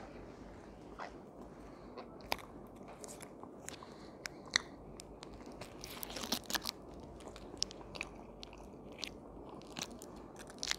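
A man chewing food close to the microphone, with irregular crisp crunches every second or so and a brief flurry of them about six seconds in.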